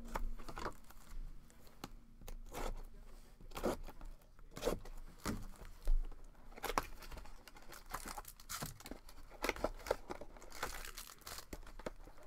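Plastic wrapping on a trading-card box and its packs being torn and crinkled by hand, in irregular rustles and short rips.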